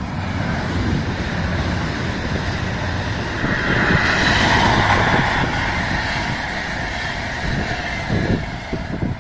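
Two trains passing each other on a double-track line: an Alstom LINT diesel railcar, then an Intercity hauled by a Class 218 diesel locomotive, its coaches rolling by with steady rail noise. The sound is loudest about four to five seconds in, then eases as the coaches run past.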